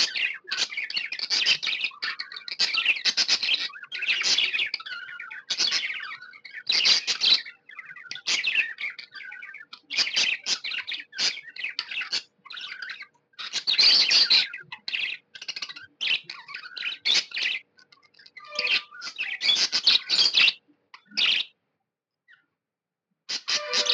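Pet budgerigar chirping in rapid high-pitched runs broken by short pauses, falling silent for about two seconds near the end.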